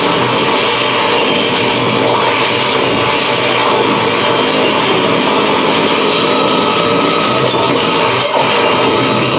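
Live harsh noise music: a loud, steady, dense wall of electronic noise with no beat or melody.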